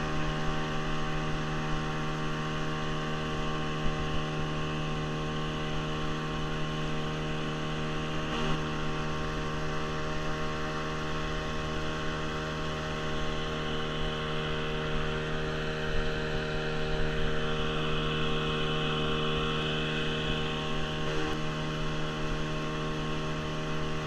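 Outboard motor of an inflatable boat running at a steady cruising speed, an even drone with a low hum, over the rush of water from the wake.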